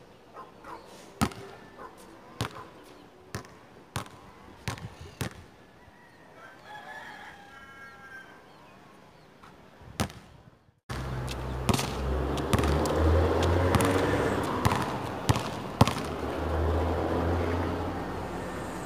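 A basketball bouncing on a hard outdoor court: a series of sharp single bounces, irregularly spaced. About halfway through, a much louder steady low rumble comes in, and a few more bounces sound through it.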